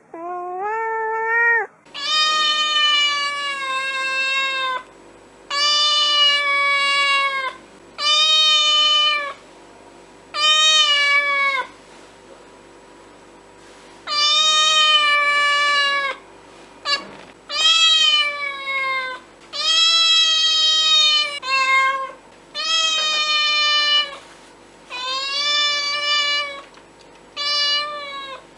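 A cat meowing repeatedly: about a dozen long, loud meows, each lasting one to three seconds with short pauses between. Each meow rises in pitch at the start and drops at the end.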